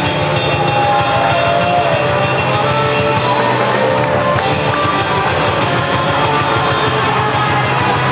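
Rock band playing live at full volume: a drum kit keeps a steady, even beat under loud guitars. Some sliding pitched lines come through in the first few seconds.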